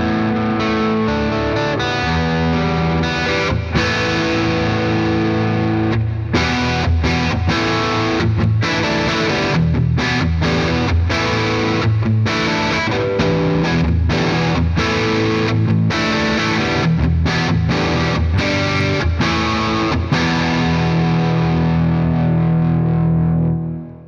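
Gibson Les Paul Standard on its neck pickup through a Victory Sheriff 25 valve amp's vintage channel, with a bit of drive: overdriven electric guitar playing held chords and notes with full low end. It stops sharply just before the end.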